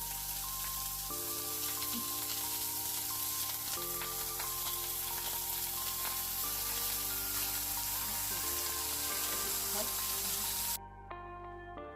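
Chicken pieces frying in hot oil in a pot, a steady sizzle that cuts off suddenly about a second before the end.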